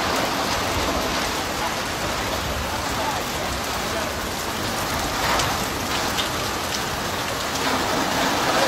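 Rain falling steadily, with a few sharper drops or splashes about five to six seconds in.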